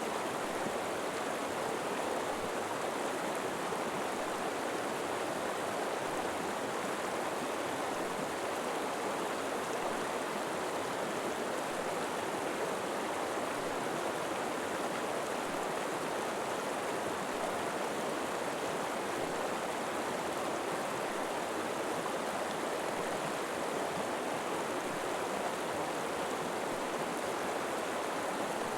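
River water flowing steadily over rocks: an even, unbroken rushing.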